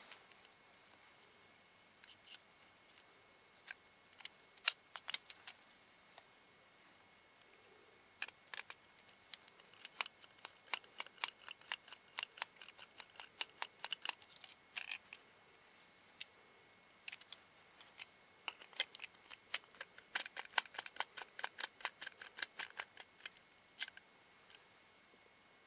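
Screwdriver turning small screws in a plastic switch housing: runs of quick dry clicks, several a second, in two long stretches, with scattered single clicks and taps between.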